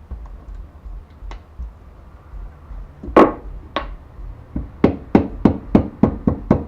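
Piston being tapped down through a ring compressor into a Honda D15B cylinder bore: a few separate knocks, the loudest about three seconds in, then quick taps about three or four a second near the end.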